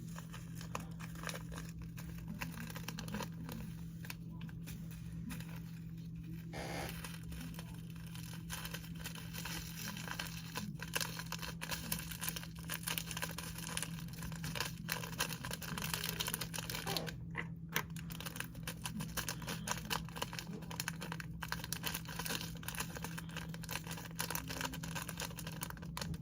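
Slime being handled in a container, giving a continuous run of small crackles and clicks over a steady low hum.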